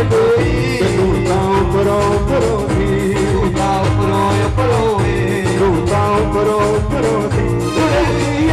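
Live band music played loud through a PA: electronic keyboards over a steady driving beat and bass, with a male voice singing a wavering melody.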